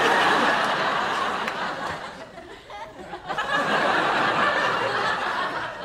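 Sitcom studio audience laughing in two waves: the first dies away about two seconds in, and a second swell rises about three seconds in and fades near the end.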